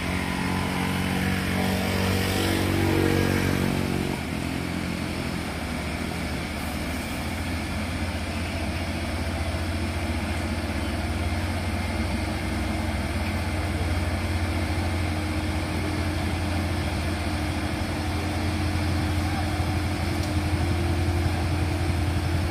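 Heavy diesel truck engine pulling slowly up a steep hairpin climb, a steady low drone. For the first four seconds a second, higher-pitched engine note sits over it, then stops.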